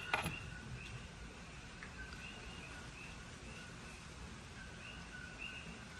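Coqui frogs calling in a chorus, many short chirping notes repeating over a faint background hiss. A brief click sounds just at the start.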